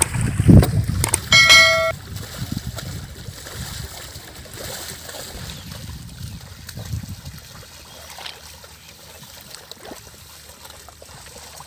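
Mud and water splashing as bulls drag a leveller through a flooded paddy field, heaviest in the first two seconds and then a steadier, quieter sloshing and trickling. A bell rings once, briefly, about a second and a half in.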